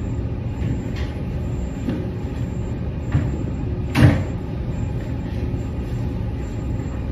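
Steady low mechanical hum filling the room, with a few faint taps and a single sharp knock about four seconds in.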